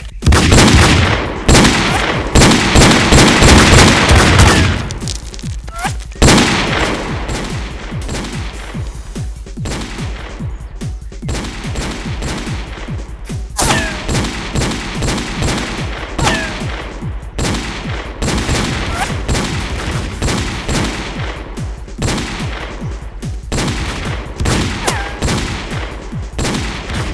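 Added gunfire sound effects: a dense, heavy barrage of rapid shots for about the first five seconds, then rapid shooting going on at a lower level for the rest.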